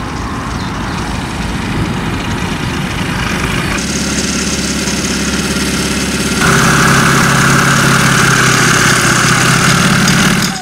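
Light aircraft's MWfly B22 115 hp engine and propeller running at taxi power. The sound changes abruptly twice, a little under halfway through and again past the middle, and is louder after the second change.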